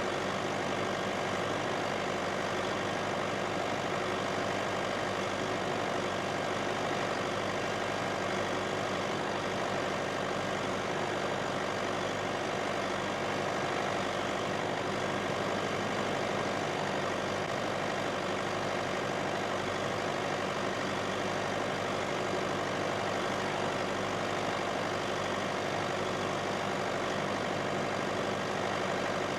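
Massey Ferguson tractor diesel engine running at a steady speed while pulling a plough.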